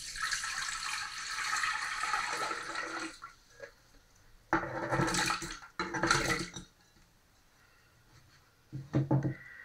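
Water poured from a plastic jug into the stainless-steel jug of a soup maker, a steady pour of about three seconds. Then two short, louder splashes about a second apart as chopped potato and carrot are dropped into the water.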